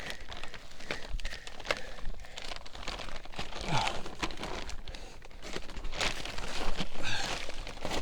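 A person crawling in a crawlspace, making irregular crinkling, rustling and scraping sounds with scattered knocks.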